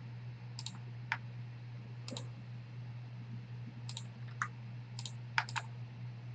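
Computer mouse button clicks, about eight short sharp clicks at irregular intervals, a couple of them in quick pairs, over a steady low electrical hum.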